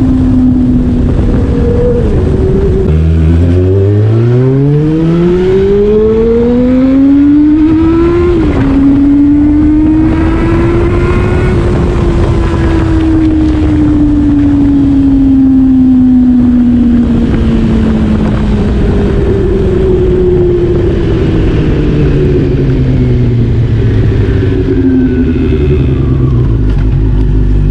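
Honda CB400 Super Four's inline-four engine through an aftermarket MIVV exhaust with the dB killer removed, under way. About three seconds in it pulls hard from low revs, the pitch climbing steeply for about five seconds; then a gear change drops the pitch sharply, it climbs more slowly, and it falls away over a long stretch as the throttle is rolled off, stepping down a few times near the end.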